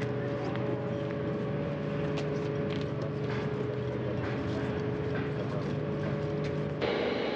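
Steady machinery hum with a couple of held tones and scattered faint clicks, from the launch pad's service gantry arms being raised around the Soyuz rocket. The sound changes abruptly, louder and brighter, just before the end.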